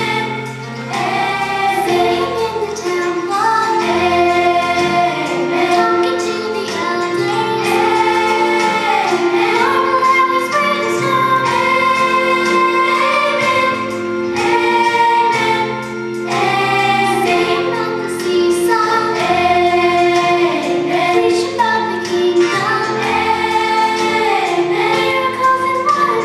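Music: a choir singing an Easter hymn-style Christian song over instrumental backing.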